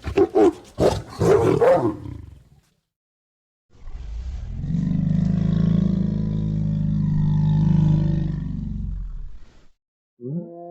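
Monster-cat creature sound effect: a rapid run of short growling calls for about two seconds, then one long, deep roar of about six seconds, and another growl starting near the end.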